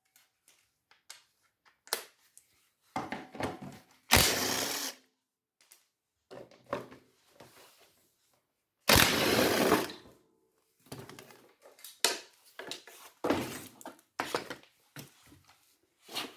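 Cordless drill-driver running in two bursts of about a second each, about 4 s and 9 s in, unscrewing the bolts that hold the mower engine to the deck. Then a run of short metal knocks and clicks as the loosened engine is worked free of the deck.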